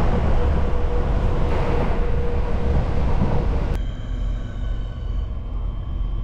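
Passenger train running, heard from inside the carriage: a dense rumble and rattle with a steady tone through it. About four seconds in the sound changes abruptly to a quieter rumble with a steady whine.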